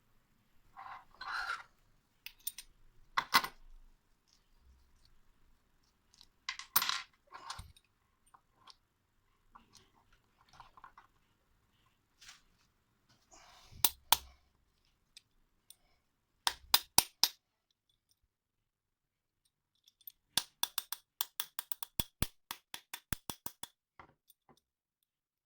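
Small metal objects being handled: scattered clinks and knocks, then a quick run of sharp metallic clicks, about four a second, near the end.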